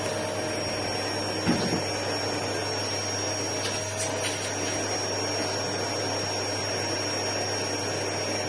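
Vacuum cleaner running steadily, a rush of air with a constant high whine, with one brief louder bump about a second and a half in.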